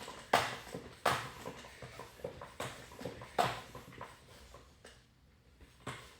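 Hand pump being stroked to inflate an e-scooter tire to high pressure: a series of sharp strokes, each with a short hiss of air, about five strokes, getting quieter and with a longer gap before the last one.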